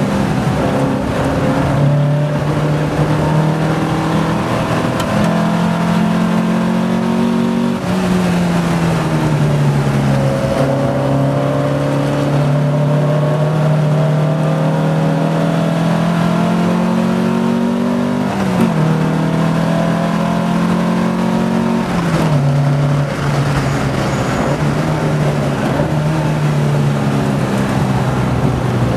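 Porsche 914 race car's engine at racing speed, heard from inside the car, its pitch rising under acceleration and falling off through shifts and braking, with sharp drops about 8 and 18 seconds in.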